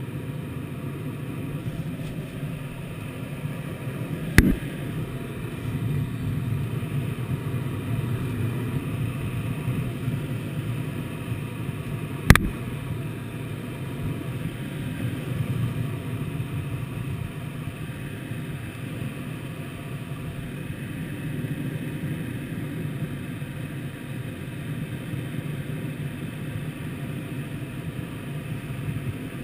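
Steady rush of airflow around the canopy and airframe of a Twin Astir glider in flight, heard inside the cockpit. Two sharp clicks cut through it, about four and twelve seconds in, the second louder.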